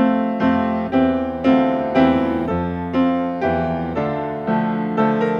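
Solo grand piano playing a hymn, with chords struck about twice a second, each ringing and fading before the next.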